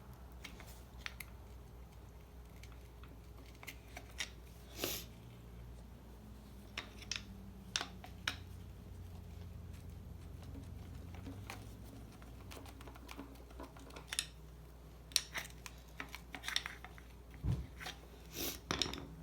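Scattered light clicks and scrapes of a flathead screwdriver prying a neutral safety switch off the selector shaft of an AW4 automatic transmission, coming more often in the last few seconds, over a faint low hum.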